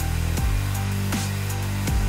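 Background electronic music with held deep bass notes and a regular drum beat.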